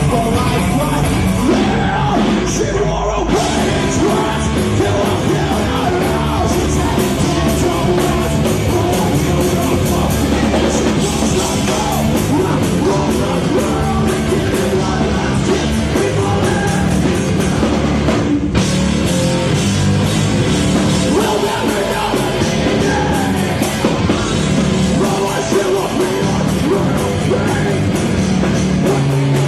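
Loud heavy rock music with yelled vocals, with a momentary break about 18 seconds in.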